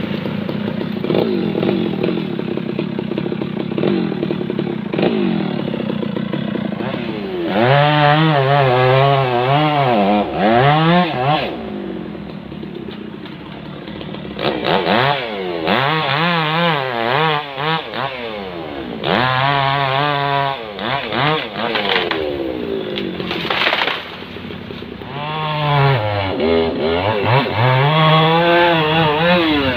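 Stihl MS 660 two-stroke chainsaw running at low speed, then run up to full throttle in four or five bursts of a few seconds each. Its pitch wavers under load as it cuts through the tree, and it drops back between cuts.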